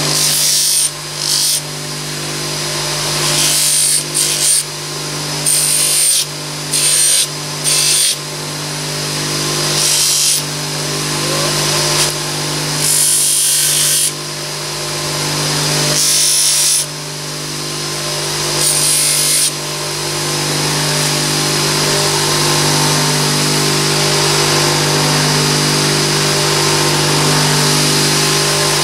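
Bench polishing motor running steadily with a cloth buffing wheel. A small brass part is pressed against the spinning wheel about nine times in the first twenty seconds, each time a short hissing rub, to buff its sharp edges. After that the motor runs on alone.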